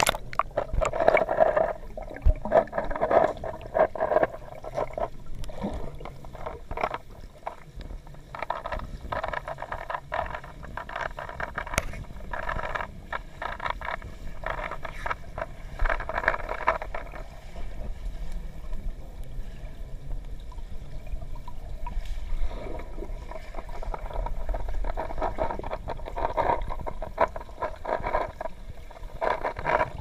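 Muffled underwater sound of a swimming pool picked up by a submerged camera: water gurgling and bubbling in uneven bursts, with a sharp splash at the very start as the swimmer goes under.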